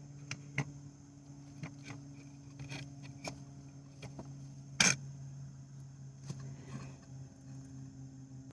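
Scattered light clicks and knocks, one much louder knock about five seconds in, over a steady low hum.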